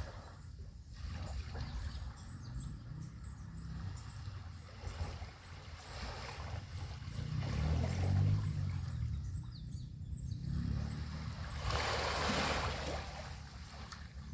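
Small sea waves washing onto a beach over a steady low rumble, with one fuller wash about twelve seconds in. A faint, high-pitched ticking repeats about twice a second throughout.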